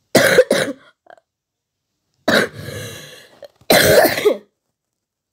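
A person's voice making short, cough-like grunts and huffs, three times: a quick double grunt near the start, a breathy one about two and a half seconds in, and another about four seconds in, with silence between.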